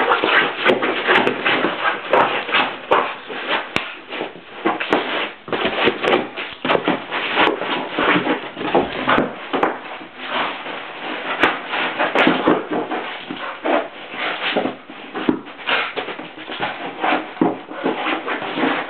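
A whippet pawing, nosing and batting a large balloon around: a continuous run of irregular scuffs and thumps against the balloon's skin and the floor.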